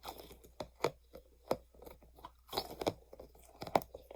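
Blue squishy stress ball being squeezed and handled, giving irregular crunchy crackles and sharp taps.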